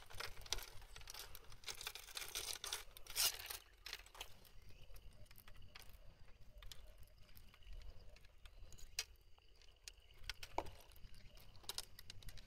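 Rustling and handling noise close to the microphone as a fishing rod and a lure with treble hooks are gripped and moved: crinkly rustling for the first few seconds, then light scattered clicks and ticks.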